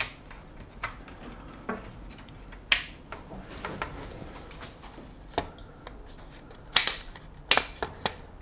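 Plastic clicks and knocks from a Ford Focus mk2 instrument cluster's housing as the cover is slotted over its LCD and pressed into place. There are about a dozen separate sharp clicks, the loudest about three seconds in and again in a cluster a second or so before the end.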